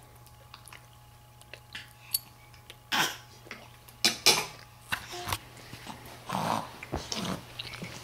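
Baby making short grunts and breathy squeals in a handful of bursts, loudest about four seconds in.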